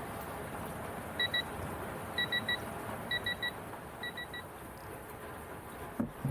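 Short high electronic beeps in quick groups: two, then three sets of three about a second apart, the last set fainter, over a steady background hiss.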